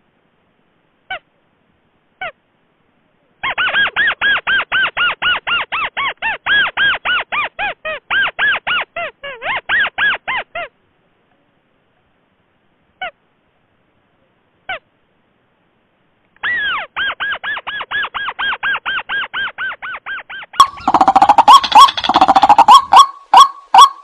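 Bird-lure recording of rails calling: white-breasted waterhen, watercock and crakes. Fast series of short, sharp, downward-hooked calls, about four a second, come in two bouts with a few single notes between. Near the end a louder, lower series of calls takes over.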